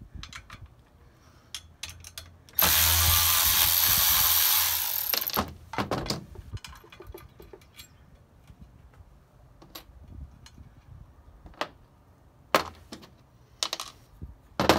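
Cordless Milwaukee power ratchet running for about three seconds, backing a bolt out of a two-piece brake rotor, then trailing off. Scattered metallic clicks and clinks follow as the loosened bolt, socket and bobbins are handled, with one sharp clank near the end.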